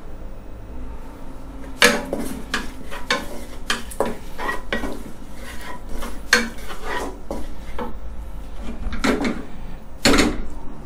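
Wooden spatula scraping and knocking against a nonstick wok, stirring pounded chilies and garlic frying in oil. The strokes start about two seconds in and come several a second, with a few sharper knocks near the end.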